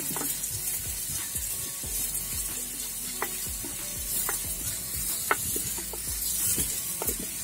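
Chopped onions sizzling as they fry in coconut oil in an earthenware pot, stirred with a wooden spatula that scrapes and knocks against the pot at irregular intervals.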